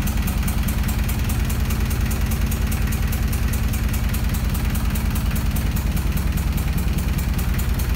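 A sailboat's inboard marine diesel engine idling steadily with a rapid, even diesel clatter.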